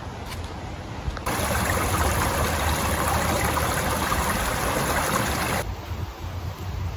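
Steady rush of running water, starting abruptly about a second in and cutting off abruptly about a second and a half before the end.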